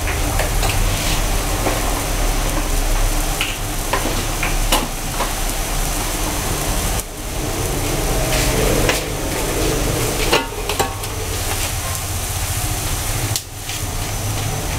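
Broth boiling hard in a large metal wok, a steady bubbling hiss, with a metal ladle stirring and knocking against the pan a few times.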